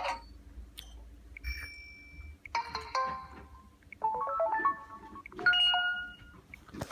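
Samsung Galaxy Ace GT-S5830 phone speaker playing short ringtone melodies of bright electronic notes, three brief phrases a second or so apart, one a quick rising run of notes, with a faint single tone before them.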